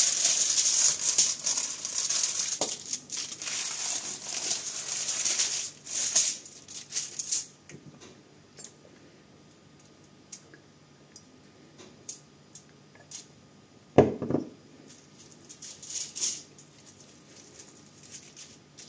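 Crackly rustling and crinkling of aluminium foil under pork ribs as they are rubbed with oil and seasoning by hand, for about the first seven seconds. Then mostly quiet with scattered small clicks and one sharp knock about two-thirds of the way through.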